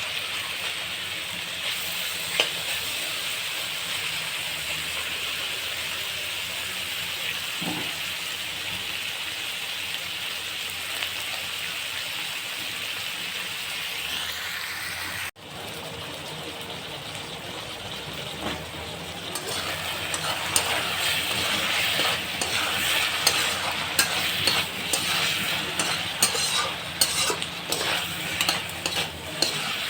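Chicken sizzling as it fries in hot oil in a kadai. A spoon clicks and scrapes against the pan as it is stirred, more busily in the second half. The sound cuts out for an instant about halfway.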